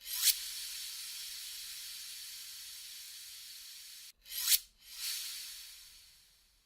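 Cinematic horror sound effect built from high, airy hiss: it starts suddenly, holds steady for about four seconds and cuts off, then comes back as a short sharp swell followed by a longer one that fades out.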